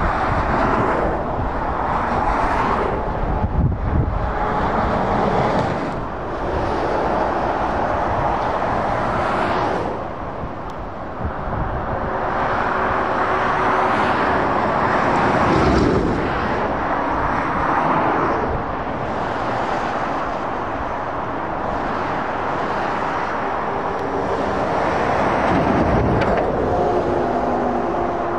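Steady motorway traffic: tyre and engine noise from cars and lorries swelling and fading as each one passes. In the first few seconds there is a strong low rumble as a Scania R730 V8 lorry goes by.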